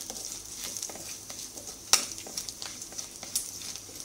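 Sliced shallots and curry leaves sizzling in hot coconut oil in a non-stick frying pan, the tempering just turning light brown, while a wooden spatula stirs them, scraping and clicking against the pan. One sharper knock of the spatula about two seconds in.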